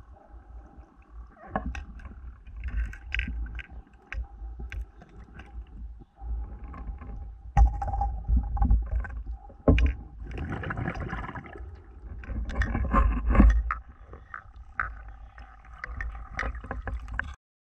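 Muffled underwater sound picked up through a camera's waterproof housing in shallow water: water moving and bubbling in irregular bursts every few seconds, with scattered clicks and knocks and a faint steady tone underneath.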